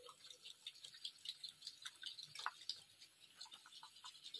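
Faint, irregular light clicks of a spoon stirring a thick mayonnaise-and-milk sauce in a bowl.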